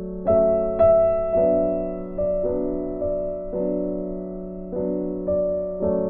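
Background music: slow, gentle piano, single notes and chords struck about once a second and left to ring and fade.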